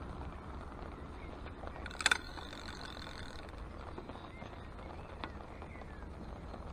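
Light rain falling steadily on the lake and bank, with a low rumble of wind on the microphone. A brief sharp clatter about two seconds in, and a few faint short chirps.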